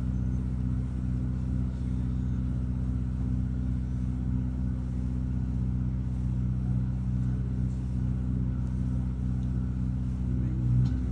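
A large boat's engine running steadily at idle, a constant low hum with no change in speed.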